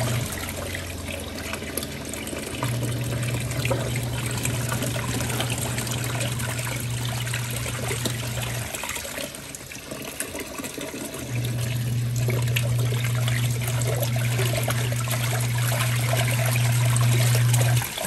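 Kuppet portable washing machine running with a load of water: its motor hums in runs of several seconds, stopping twice for a couple of seconds, while water sloshes and trickles in the tub.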